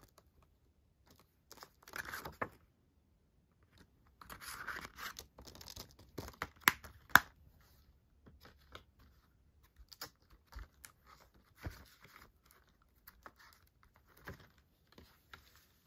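A plastic Blu-ray case and its cardboard slipcover being handled: scattered clicks and taps of plastic, with stretches of rustling and scraping of card against plastic. The two loudest clicks come about seven seconds in.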